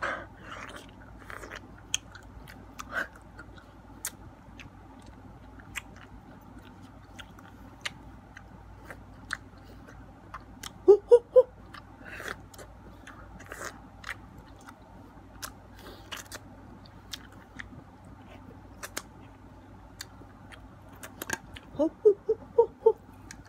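Close-up eating sounds of a person biting into and chewing ripe mango: wet mouth smacks and sharp little clicks scattered throughout. A quick run of short hooting vocal sounds comes about eleven seconds in, and another near the end.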